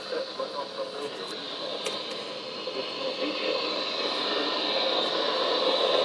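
Weather radio receiver's small speaker playing the broadcast voice reading an Areal Flood Warning, barely audible under a steady hiss.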